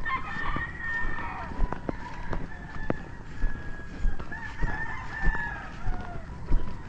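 Roosters crowing, several long wavering calls overlapping for the first five seconds or so. Beneath them run walking footsteps on a grassy path, about two a second.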